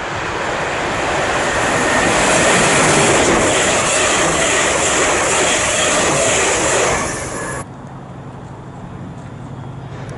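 Train running through the station: a loud, steady rushing noise of wheels and air that cuts off suddenly about seven and a half seconds in, leaving a quieter low, steady hum.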